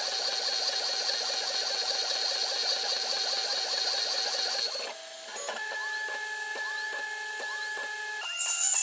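CNC-converted PM-25MV mini milling machine running a roughing toolpath: its axis drive motors whine in steady tones with a fast rattling texture. About five seconds in the sound drops and shifts to different pitches with regular ticks and short gliding sweeps, and it shifts again near the end as the moves change.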